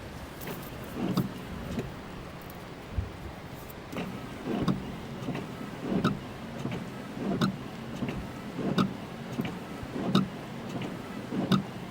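Car windscreen wipers sweeping back and forth, heard from inside the cabin: a regular swish with a small click on each stroke, about every second and a half, over a steady hiss of rain on the car.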